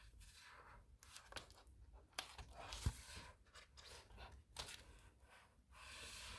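Faint rustling of paper pages being turned in a hardback book, several soft swishes with a light knock about three seconds in.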